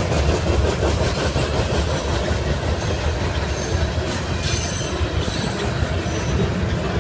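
Covered grain hopper cars of a freight train rolling past close by: a steady rumble and clatter of steel wheels on the rails, with a few brief high-pitched wheel squeals, the clearest a little past four seconds in.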